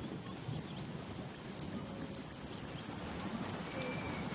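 Steady rain falling on dense rainforest foliage, with water streaming and dripping off the leaves.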